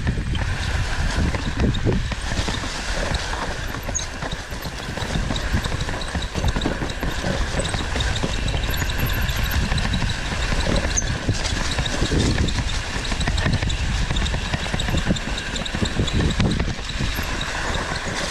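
Mountain bike ridden along a dirt trail: tyres rolling over dirt and roots, and the bike rattling and knocking over bumps, under a steady rumble of wind on the microphone.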